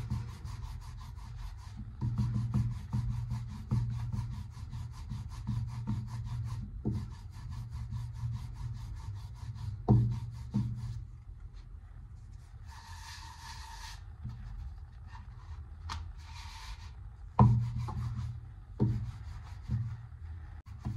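Wooden rolling pin (belan) rolling out roti dough on a wooden board, with rhythmic back-and-forth rubbing strokes. A few sharper knocks of the pin on the board, one about ten seconds in and a louder one near the end.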